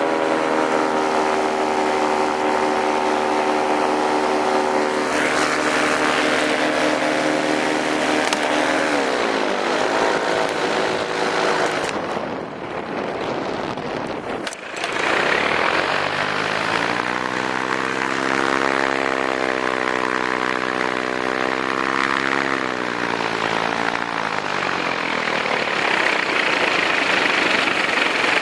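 Paramotor engine and propeller running under steady power in flight, with wind rushing over the microphone. The engine is throttled back about eight seconds in and drops to a low murmur, then there is one sharp click. It is throttled up again, then eased back near the end.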